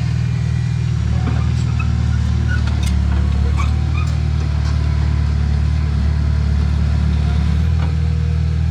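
Diesel engine of heavy earthmoving machinery running at a steady speed, with scattered light clicks and squeaks from the machine.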